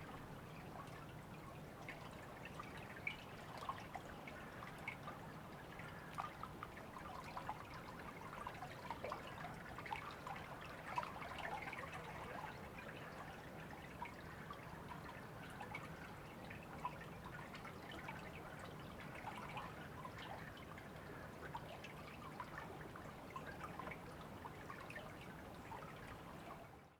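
River water running and trickling steadily, with many small gurgles and splashes over a faint low rumble. It cuts out for an instant near the end.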